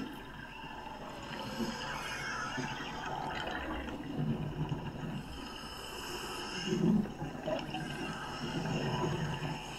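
Underwater sound of a diver's breathing gear: muffled gurgling and bubbling of exhaled air, in recurring low bursts, the loudest about seven seconds in, over a steady watery hiss.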